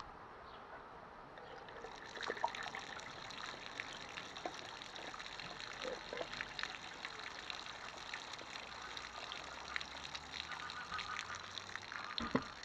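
Water poured through a funnel into a moulded coolant hose, trickling out of its branch and splattering onto soil and gravel, the patter picking up about two seconds in. It is a flow test, and the hose is partially blocked.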